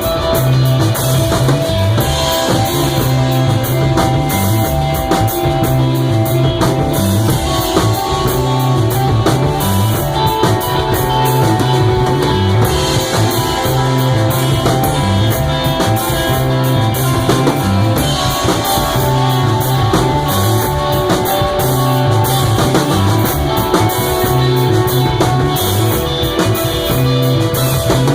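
Live rock band playing loudly: guitar over a steady drum-kit beat, with sustained low bass notes.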